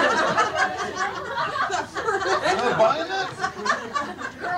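A room full of people laughing and chuckling, with several voices talking over one another.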